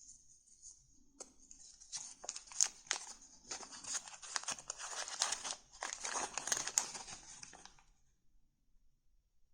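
Paper crinkling and rustling as it is handled close up: a dense run of small crackles that begins about two seconds in and stops shortly before the end.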